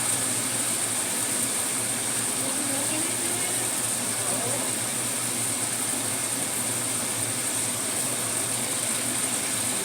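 Steady hiss of sauce simmering and sizzling in a pan on the stove, over a low, even hum.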